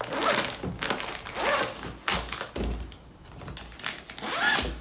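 Rustling and crinkling of baby clothes and packaging being handled and packed into a bag, in irregular bursts with a few dull thumps, the heaviest about two to two and a half seconds in.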